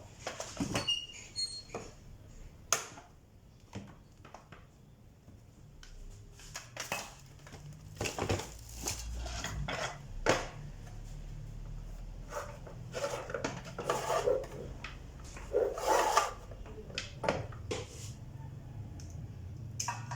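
Irregular clicks, knocks and light rattles of small hard objects being handled, over a low hum that comes in partway through.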